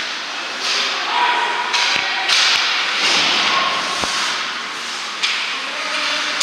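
Ice hockey play on the rink: skate blades scraping and carving the ice in several hissing bursts, with sharp clacks of sticks and puck at about two seconds in, again just after, and once near four seconds.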